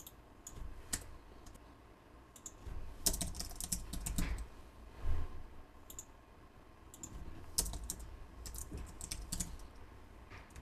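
Computer keyboard typing, in two runs of keystrokes: one about three seconds in and another from about seven to nine seconds in. A soft thump comes about five seconds in.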